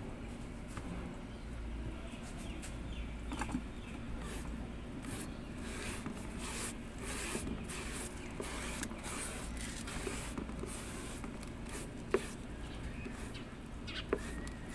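Paintbrush strokes spreading a thick, water-thinned waterproofing sealant over an antenna housing: a continuous run of short, irregular scraping and rubbing strokes. There are two sharper ticks in the last few seconds.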